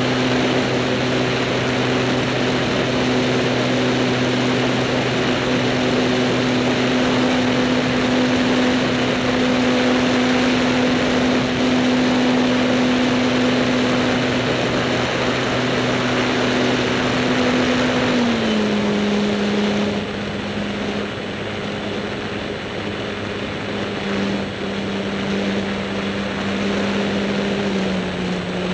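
Electric motor and propeller of an Apprentice S15E RC trainer plane in flight: a steady humming whine over rushing wind on the wing-mounted camera. The pitch steps down about two-thirds of the way through as the motor slows, and drops slightly again near the end.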